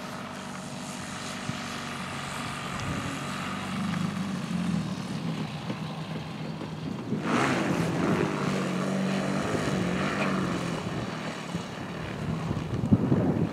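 Propeller engine of a radio-controlled scale Bo 209 Monsun tow plane running, its pitch wavering up and down as the model comes in over the grass field. A rush of noise comes about seven seconds in.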